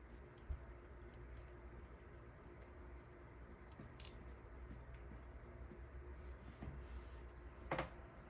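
Faint scattered small clicks and taps of metal parts being handled while working on a disassembled dimple lock cylinder, its pins and springs, with a low knock about half a second in and a sharper click near the end.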